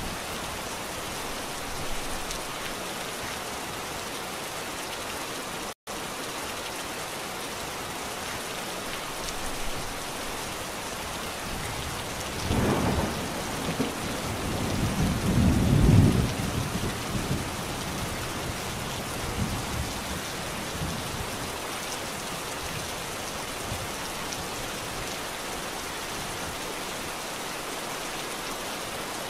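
Steady rain with thunder rolling in the distance: a short rumble about twelve seconds in, then a longer, louder roll a few seconds later. Near six seconds the sound cuts out for a split second.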